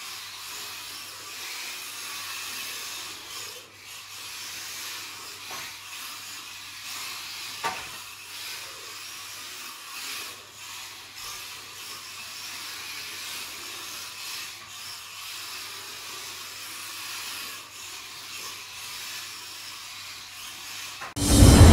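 WLToys micro RC drift cars running on a mat track: the buzz of their small electric motors and the scrub of their tyres as they slide, swelling and fading, with one sharp click about eight seconds in. Loud music starts abruptly at the very end.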